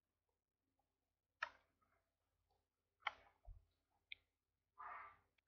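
Near silence broken by a few faint, sharp computer-mouse clicks, about a second and a half, three and four seconds in, and a brief soft noise near the end.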